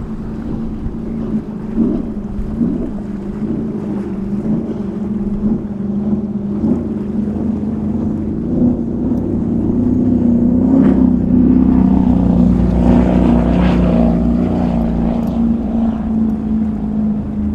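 Motorboat engines running with a steady low drone, growing louder from about ten seconds in and easing off a little near the end.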